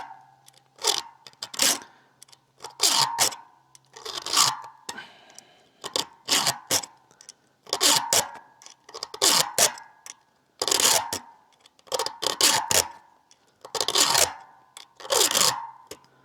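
Hand file scraping across the cutting teeth of a dull chainsaw chain, in even strokes about every one and a half seconds, as the chain is resharpened.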